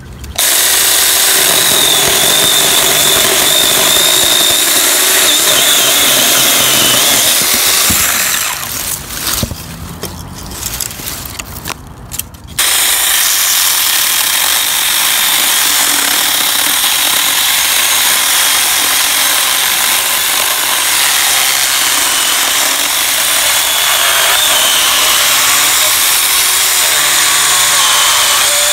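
O-CONN 24V cordless mini chainsaw running under load, its chain cutting through wood with a steady high-pitched motor whine and the rasp of the cut. About eight seconds in it cuts out and comes back in short bursts for a few seconds, then runs steadily again.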